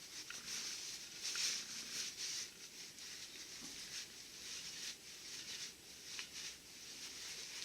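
A towel wiping and sopping up leftover gear oil inside a Borg-Warner T-10 four-speed transmission case: soft, irregular rustling swishes with a few light clicks.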